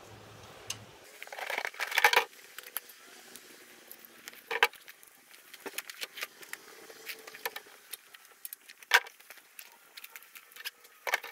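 Scattered clicks, knocks and light rattles of pressure-washer hoses and fittings being handled and laid out on paving, with sharper knocks about 4.5 and 9 seconds in.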